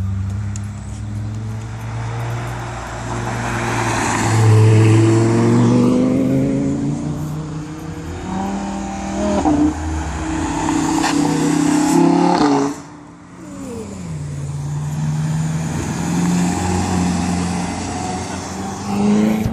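Supercar engines, a Lamborghini Huracán and a Ferrari California, accelerating hard through a corner, the engine note climbing in pitch again and again as they rev. About two-thirds through, the sound drops off sharply and the pitch falls, then another engine carries on steadily.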